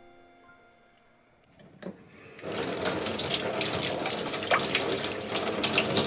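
Kitchen tap running over a sweet potato being rubbed clean by hand in a stainless sink, the water splashing irregularly off hands and skin. The water starts about two and a half seconds in, after the last notes of soft music die away and a single soft knock.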